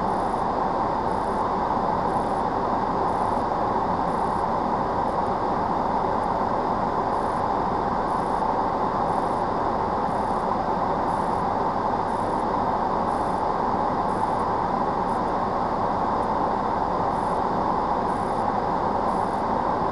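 Steady, unchanging noise inside a stationary lorry's cab on a rainy day, with faint high-pitched pulses about twice a second.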